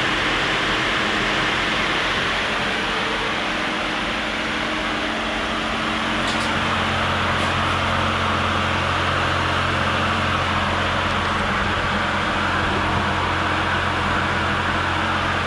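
Nissan TD42T indirect-injection turbo diesel idling steadily, with the newly wired electric thermo fan on the intercooler running. A low hum grows stronger about six seconds in and then holds steady.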